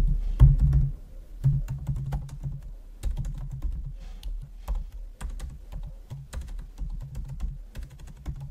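Typing on a computer keyboard: a fast, irregular run of key clicks with low thuds under many of the strokes.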